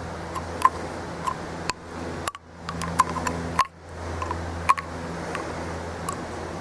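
Scattered sharp little clicks of a butter-knife tip picking at a garden-hose coupling to pry out the old rubber washer, over a steady low hum. The sound briefly drops away twice in the middle.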